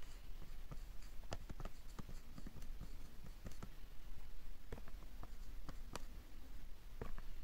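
Black marker pen writing Japanese characters on a glossy white board: irregular short taps and scratches of the tip as each stroke is drawn, over a steady low hum.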